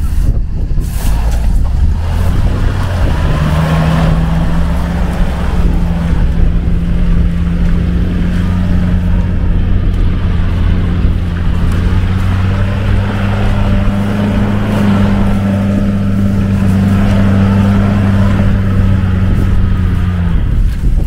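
4x4 off-road vehicle's engine running at steady high revs under load in mud, its pitch stepping up slightly a few seconds in and again around the middle, then dropping away just before the end.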